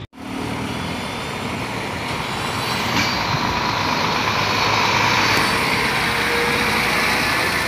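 Helicopter turbine engine and spinning main rotor running on the ground: a loud, steady noise with a faint whine that slowly grows a little louder.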